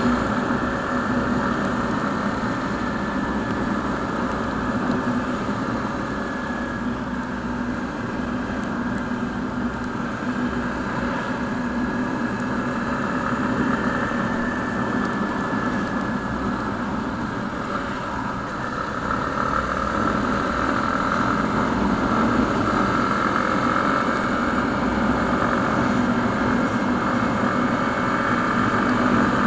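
Motorcycle engine running steadily while riding at cruising speed, with wind and road noise. It grows a little louder about two-thirds of the way through.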